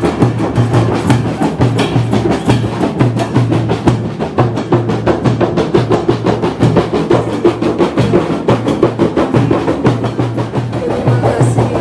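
Music with busy, rapid drumming over a steady low drum beat.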